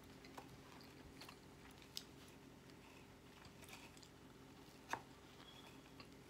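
Faint, wet chewing and lip-smacking of a man eating a soft Filet-O-Fish sandwich. A few sharp mouth clicks fall at irregular intervals, the loudest about five seconds in, over a low steady room hum.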